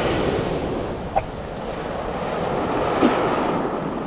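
Surf breaking and washing up a pebble beach, a steady rush of water with wind on the microphone. Two brief sharper sounds stand out, one just after a second in and a louder one about three seconds in.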